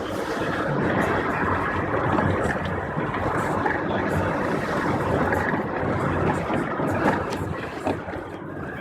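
Steady motor-vehicle noise, with a couple of brief knocks near the end.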